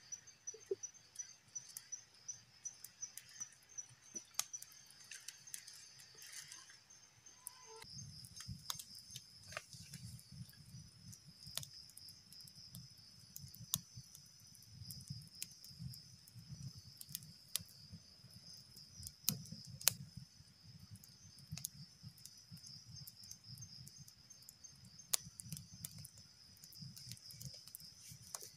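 Insects trilling steadily in a high, even pulse, with scattered sharp clicks and knocks. From about eight seconds in, a low rumble joins underneath.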